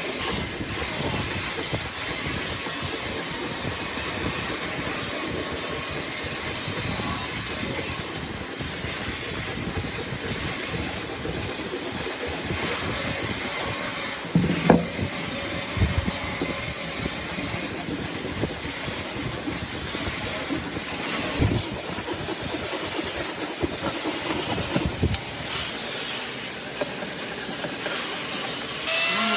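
An electric power tool working wood, giving a steady rasping noise with a high motor whine that wavers and drops away twice for several seconds. A few sharp knocks come around the middle.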